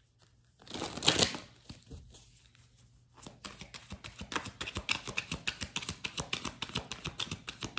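A deck of cards being handled and shuffled: a soft swish about a second in, then from about three seconds in a fast run of light clicks and rustles.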